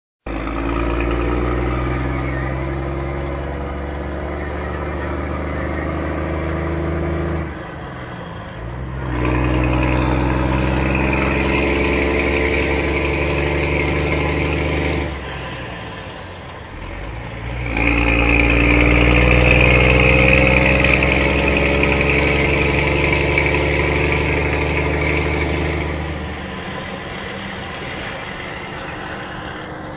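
Scania G380 truck engine rumbling loudly, held at raised revs three times for six to eight seconds each. Between the runs and near the end it drops back to idle.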